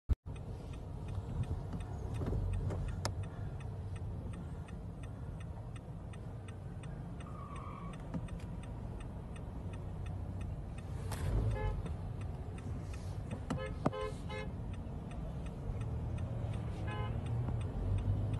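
Steady low road and engine rumble heard from inside a car moving along a highway, with a few short car horn toots about two-thirds of the way in.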